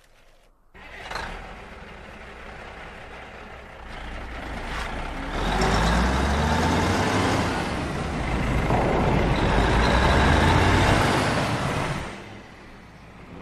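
Peterbilt 281 tanker truck's diesel engine running hard as the truck charges and rams through buildings, with sharp crashes of impact. It starts suddenly, gets much louder about halfway through with the engine note rising, and dies down near the end.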